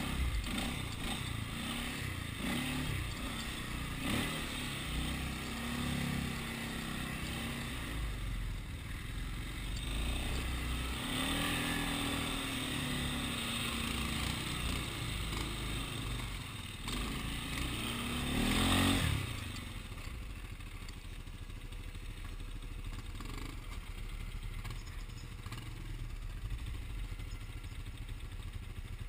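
Polaris Sportsman ATV's single-cylinder four-stroke engine running, revving up and down. It is loudest about two-thirds of the way through, then drops to a lower, steady run.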